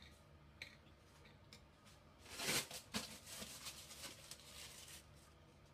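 A wire whisk in a bowl of chocolate cake batter: a few faint clicks, then a louder stretch of dense clicking and scraping starting about two seconds in and lasting about three seconds.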